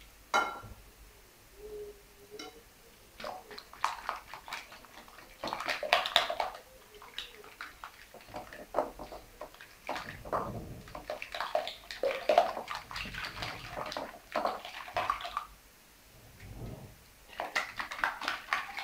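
Wire whisk beating raw eggs in a bowl: rapid clicking of the wires against the bowl with the wet slap of the liquid egg, in bursts with short pauses.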